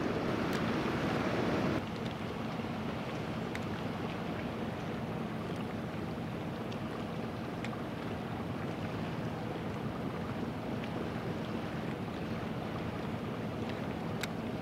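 Steady seaside ambient noise of wind and water. It is louder for the first two seconds, then drops suddenly to a lower steady level, with a few faint clicks.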